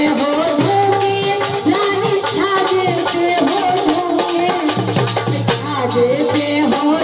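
Live Indian folk-style music: a pitched melody over a steady rhythmic beat with a jingling rattle-type percussion.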